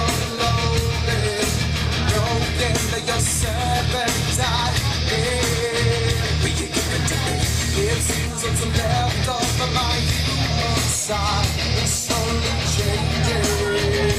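Loud heavy rock music: electric guitars and a sung vocal over a steady beat, the backing track for a stage performance.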